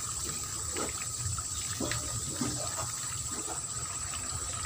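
Outdoor ambience at a small ditch: water gently flowing and trickling, under a steady high-pitched drone, with a few faint small ticks.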